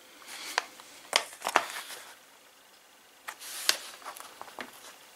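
Clicks, knocks and rustling as the plastic housing of a small one-handed battery chainsaw is handled and opened up: a few sharp clicks in a cluster about a second in and another near four seconds.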